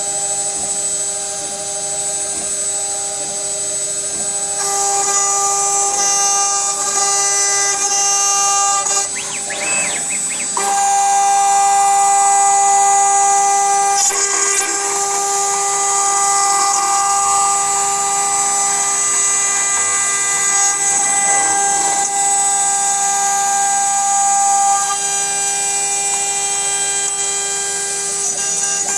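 CNC router spindle whining steadily while milling cellulose acetate, a held chord of pitched tones. About nine seconds in, the pitch glides for a second or so, then settles into a new steady whine; the tone mix changes again near five seconds and near twenty-five seconds.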